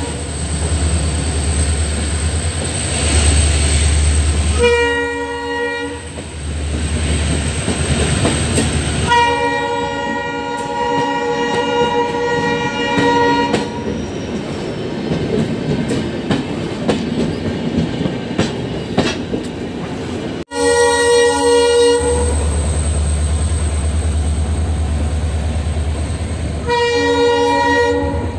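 Diesel locomotive horn sounding again and again as a warning to people crossing the tracks: a short blast, then a long one of about four seconds, then more blasts later on. Under the horn, passenger coaches roll slowly past close by with a steady clickety-clack of wheels on the rails and a low rumble.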